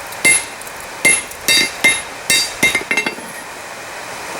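Hand forging with a hammer on an anvil: about seven hammer blows on a hot steel hammer head, each with a bright metallic ring. The blows come unevenly, some close together, and stop about three seconds in.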